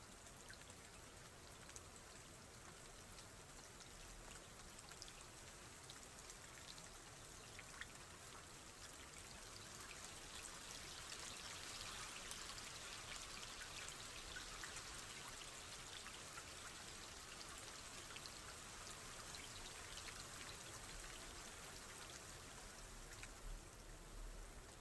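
Faint, steady rain with individual drops ticking, growing a little heavier in the middle.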